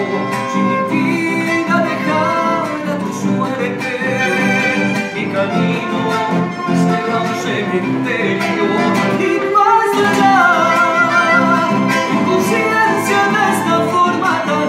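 Chamamé played live on an accordion, a classical guitar and two violins, the violins carrying a wavering melody over the guitar's chords.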